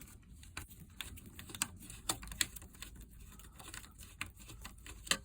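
A run of irregular light clicks and taps, a few a second, with a sharper click near the end.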